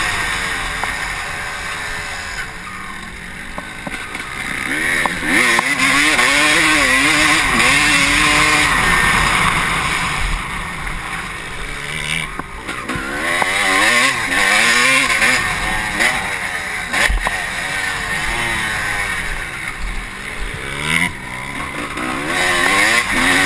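Honda CR250 two-stroke motocross bike engine being ridden hard, its pitch rising and falling over and over as the throttle is opened and shut, with a short drop about halfway through.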